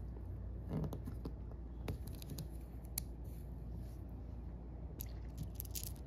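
Tiny Daiso Petit Block plastic bricks being pulled apart and handled by the fingers: scattered small clicks and snaps, with a quick run of clicks near the end, over a low steady hum.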